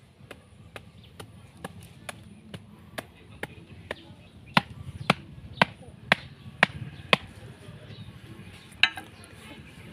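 Repeated blows of a small axe on the top of a bamboo stake, driving it into the dirt, about two a second. They are light at first, then six much harder strikes come about halfway, and one more sharp knock falls near the end.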